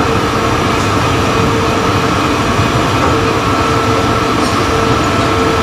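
Tower crane drive machinery running under operation, heard from inside the operator's cab: a steady mechanical rumble with a held electric whine.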